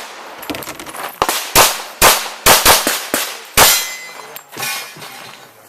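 A Glock 21 .45 ACP pistol firing about six shots in quick succession, starting about a second and a half in. A steel target rings briefly after the last shot.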